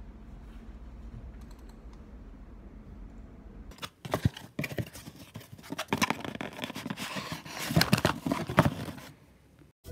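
Faint steady room hum, then, from about four seconds in, irregular sharp clicks and crackles of handling noise that stop suddenly near the end.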